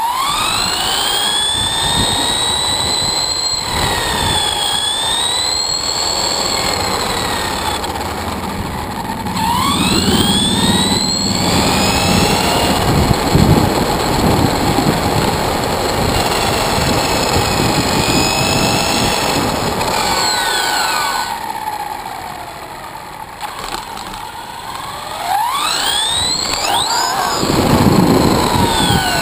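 Axial Exo RC buggy's Tekin 4600 four-pole brushless motor whining, its pitch sweeping up and down as the throttle is punched and released. Under it runs a rumble from the tyres and drivetrain on rough asphalt and concrete.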